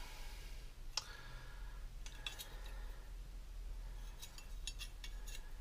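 Faint metallic clicks and light clinks of thin sheet-steel offcuts and a digital caliper being handled during measuring: one sharp click about a second in, then small clusters of ticks.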